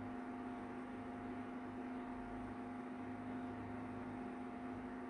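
Faint steady electrical hum, one low tone with fainter higher tones above it, unchanging throughout.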